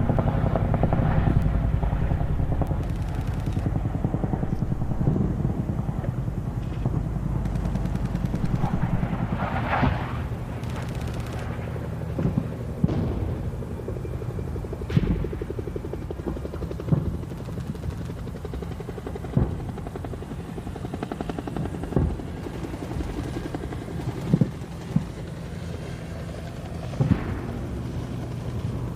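Battle sound effect: a steady low mechanical rumble, heaviest in the first ten seconds. Sharp single gunshots and blasts are scattered every few seconds through the second half.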